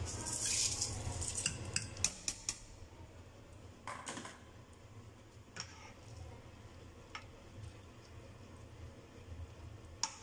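Rice poured from a mesh strainer into a pot of broth with a brief rush, then a spoon stirring it, knocking against the metal pot now and then: three quick knocks about two seconds in and a few single ones later.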